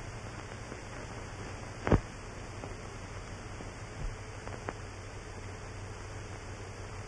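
Steady hiss and low hum of an old film soundtrack, with one sharp click about two seconds in and a couple of faint ticks later.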